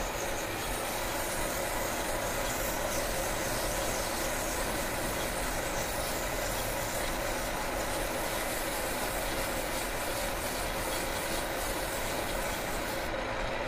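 Emery paper wrapped on a slotted rod, spun by the lathe motor, steadily rubbing inside a gear's bore to take it from minus to plus size. The high hiss drops away near the end.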